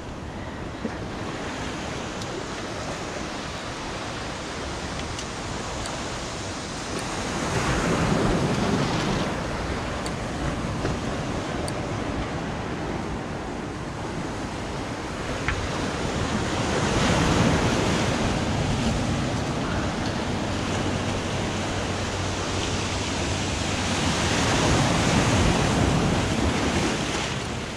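Ocean surf breaking on the shore, swelling louder about every eight seconds as each wave comes in.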